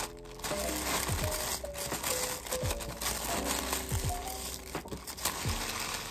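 Plastic and paper packaging crinkling and rustling as it is folded around a parcel by hand, over light background music with a simple melody.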